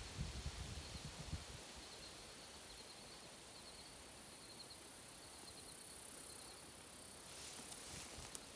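Faint insects chirping in tall grass: a repeated high chirp at one pitch, which stops about seven seconds in, over a steady high insect hiss. A few low thumps in the first second and a half.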